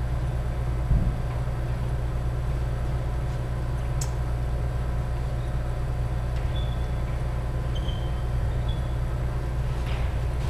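Badminton rally over a steady low hum: sharp racket strikes on a shuttlecock about four seconds in and again near the end, with short shoe squeaks on the wooden court floor in between.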